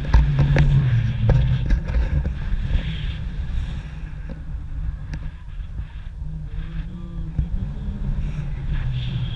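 Airflow buffeting a camera microphone on a paraglider in flight: a loud low rumble with gusts and scattered knocks, strongest in the first couple of seconds.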